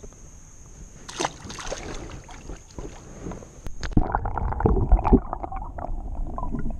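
Small splashes and drips of water at a kayak's side. About four seconds in, the sound turns to the muffled rumble and gurgle of moving water heard with the camera submerged.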